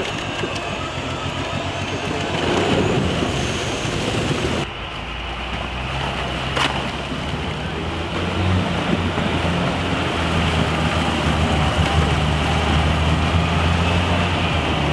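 Off-road vehicle engine running steadily under a rushing noise, with the engine note growing stronger over the second half. There is an abrupt break about five seconds in and a single sharp click shortly after.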